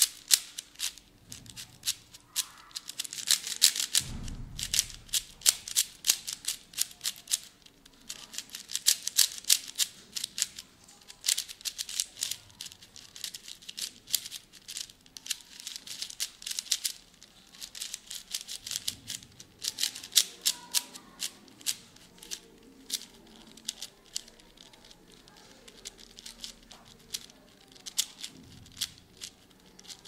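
Plastic clicking and clacking of a Moyu Aosu 4x4 speed cube's layers being turned rapidly by hand, in quick bursts of turns with short pauses between them. A dull low bump about four seconds in.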